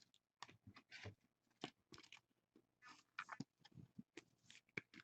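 Faint, scattered small clicks and rustles of trading cards being handled and slid against one another.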